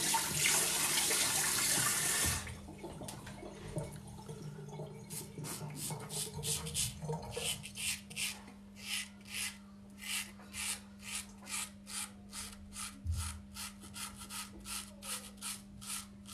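Tap water running into the sink, shut off about two seconds in. Then an Emidio D'Astolfo straight razor scraping through two-day stubble in short, even strokes, about two a second.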